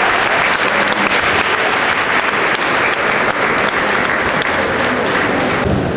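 Crowd applauding with steady, dense clapping.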